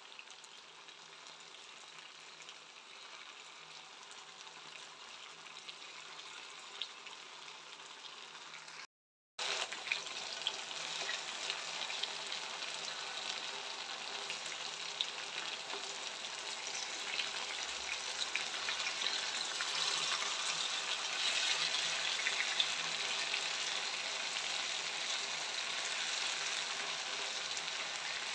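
Marinated chicken pieces frying in coconut oil in a pan: a steady sizzle with crackling pops. It is quieter at first, then after a brief cut-out about nine seconds in it comes back louder.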